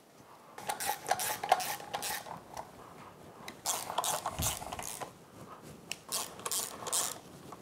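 Hand socket ratchet clicking in three short runs, with metal clinking, as the starter motor's bolts on an outboard powerhead are run in.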